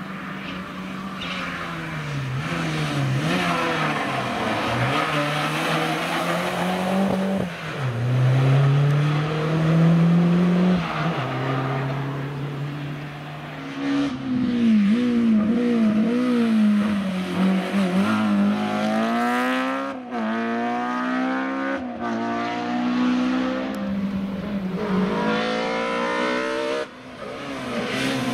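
Rally car engines worked hard through a bend, several cars in turn: revs climb through the gears, drop under braking and blip quickly on downshifts.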